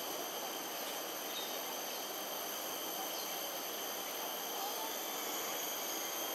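Steady insect chorus: several high, continuous trilling tones held without a break over a constant hiss of background noise.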